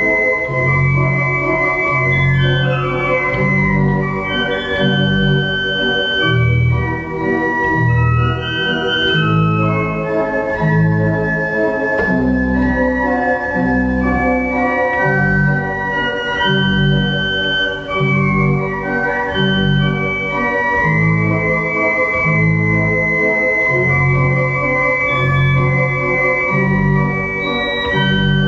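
Organ playing an andante in G major: sustained chords and a melody line over detached bass notes that move in a steady pulse about once a second.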